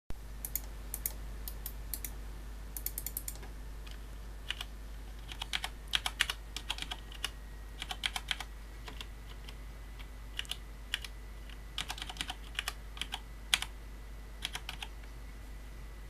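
Typing on a Cherry G80-3000S tenkeyless keyboard with Cherry MX Brown tactile switches soldered to the PCB without a plate: quick, irregular runs of key clacks broken by short pauses.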